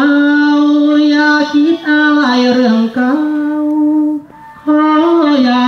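A single voice singing long held notes that step slowly up and down, with a short pause about four seconds in.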